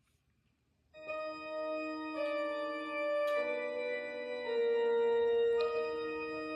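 Slow, held chords played on a keyboard with an organ-like sound, starting about a second in. The notes sustain evenly without fading, and the chord changes every second or so.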